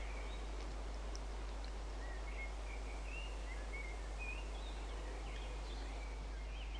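Birds chirping in short, scattered calls over a steady hiss of rural background noise.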